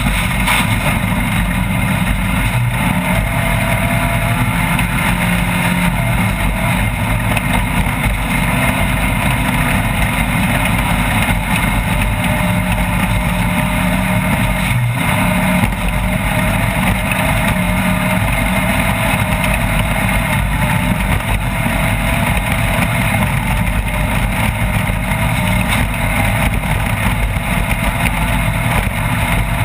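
Off-road race vehicle's engine running hard at a fairly steady pitch, under a constant rough, rattling noise from the vehicle at speed.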